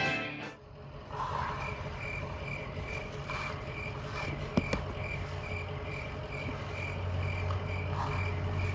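Cricket chirping steadily, about three short chirps a second, over a low steady hum, with two sharp clicks about halfway through.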